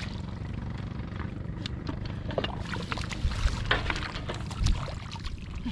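Shallow field water sloshing and splashing as people wade and grope for fish by hand, with many small scattered splashes over a steady low rumble.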